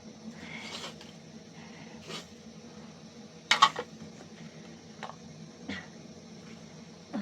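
Scattered knocks and rustles over a steady low hum, with one loud, sharp clattering knock about three and a half seconds in.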